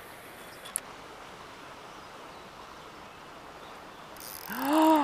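Spinning reel cranked steadily as a blade bait is retrieved, with one sharp click under a second in. Near the end a splash as a long-nosed gar hits the lure right at the bank, followed at once by a man's short startled exclamation.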